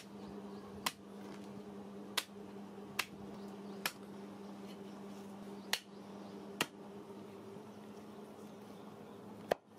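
Cleaver chopping through a goat's head on a wooden chopping block: about eight sharp strikes at irregular intervals, roughly a second or more apart.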